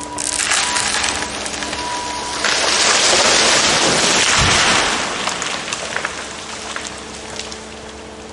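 A tree coming down: a rushing crash of branches and leaves that builds for a few seconds, with a heavy thud about four and a half seconds in as it hits the ground, then dies away.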